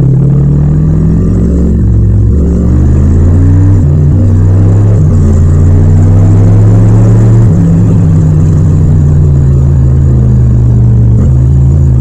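Yamaha MT-07 parallel-twin engine running under way, its pitch climbing as the bike accelerates a few seconds in.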